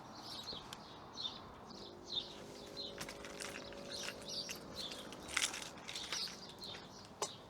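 A small bird chirping over and over, about two short high notes a second, with a faint hum in the middle and a couple of sharp clicks near the end.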